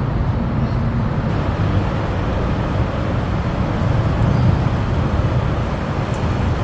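Steady low rumble of outdoor urban ambience, with no distinct events.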